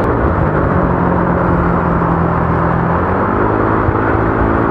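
Honda Click scooter's single-cylinder engine running at a steady cruising speed through an aftermarket Akrapovic exhaust, a continuous even drone while riding.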